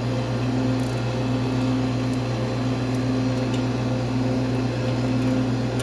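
Steady electrical hum of a running R-134a air conditioning unit, with a higher tone that comes and goes and a few faint clicks.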